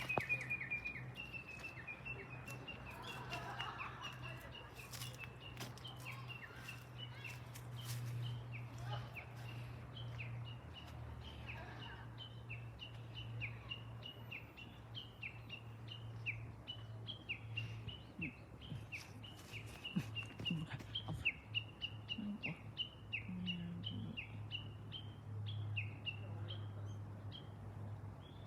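Japanese bush warbler calling: a long run of short, quick, repeated high notes, about two or three a second, over a steady low hum.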